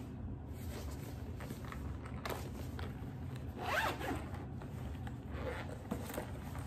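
Zipper on a hard-shell carrying case being pulled open: a short pull about two seconds in and a longer, louder pull around four seconds in.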